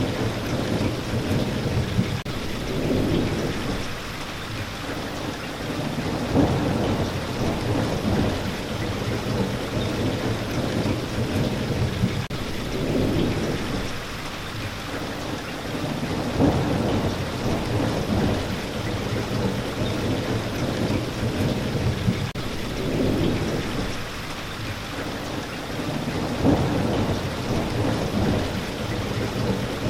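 Steady rain with low rolling thunder that swells and fades several times.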